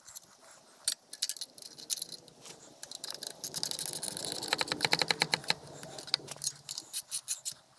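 Metal wrench tightening nuts onto the log splitter's hydraulic pump bolts: scattered clinks of steel on steel, then a quick run of metallic clicks lasting about three seconds in the middle.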